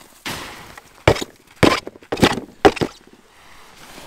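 Boots crunching and stomping in deep packed snow: about five sharp crunches, unevenly spaced, in the first three seconds.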